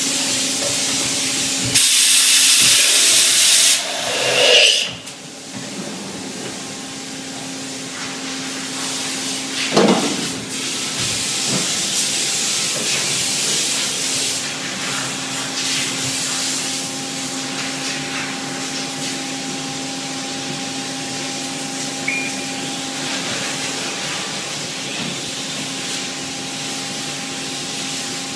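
Mazak H1250 horizontal machining centre running: a steady hum with a constant hiss. About two seconds in comes a loud burst of air-like hiss lasting nearly two seconds, then a short noisy clatter, and a single sharp knock near ten seconds.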